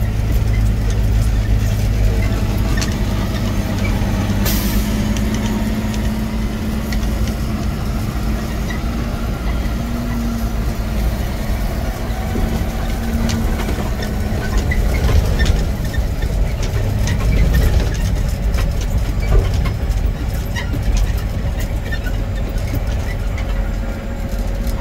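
Semi truck's diesel engine running steadily, heard from inside the cab, with a brief air-brake hiss about four and a half seconds in.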